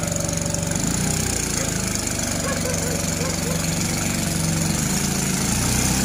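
An engine running steadily, its low note changing about five and a half seconds in.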